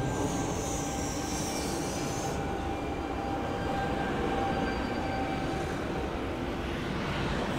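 Sydney Trains C-set double-deck electric train pulling out of the station, its carriages rolling past with a steady rumble and a whine held at a few fixed pitches. A high whine falls in pitch and stops about two seconds in.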